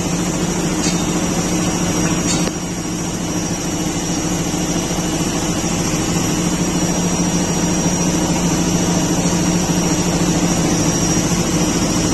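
IFB 6.5 kg washing machine running steadily with an even hum and a thin high whine, with one small click about two and a half seconds in. It runs without the loud vibrating noise, because the drum now holds a lighter load instead of being stuffed full.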